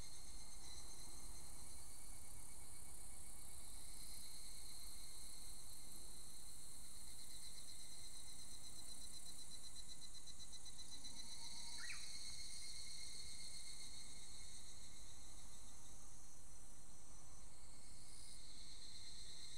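A chorus of higurashi (evening cicadas) calls continuously, a high-pitched pulsing trill that swells in the middle. A single short call from a Japanese bush warbler cuts through about twelve seconds in.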